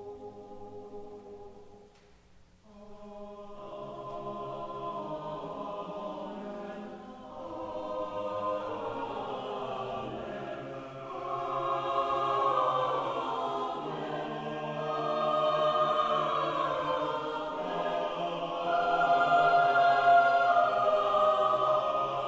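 Church choir singing in parts. A phrase ends about two seconds in, a short pause follows, then the choir comes back in and builds steadily louder.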